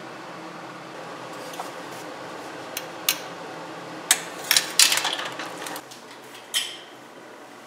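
Metal kitchen tongs clinking and knocking against glass jars and a stainless steel pot as sterilized jars are lifted out of hot water: a handful of sharp clinks, the loudest cluster just past the middle with a short ringing after it, over a steady hiss.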